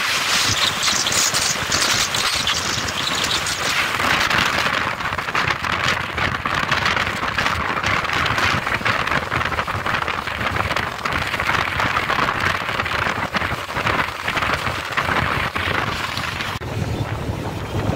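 Wind buffeting a phone's microphone on a moving motorcycle, a loud, even rushing hiss with road and traffic noise underneath. The hiss thins a little near the end.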